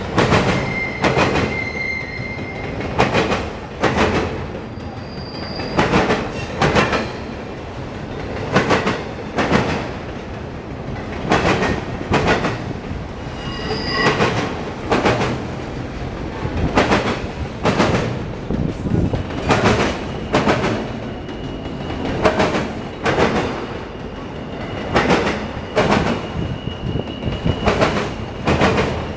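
Autorack freight train rolling past, its wheels clacking over rail joints in evenly spaced pairs about every two and a half to three seconds over a steady rumble, with a faint high-pitched wheel squeal.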